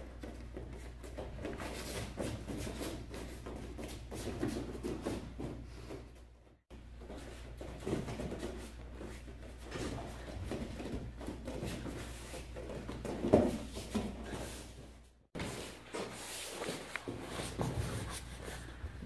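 Bare feet shuffling and bodies scuffling and rubbing on training mats during takedown and grappling drills, over a steady low hum. One sharper thump comes about two-thirds through, and the sound cuts out briefly twice.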